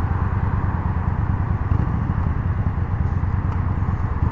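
Yamaha Bolt's air-cooled V-twin engine running steadily while the motorcycle is ridden, a low, even rumble with a rush of noise over it.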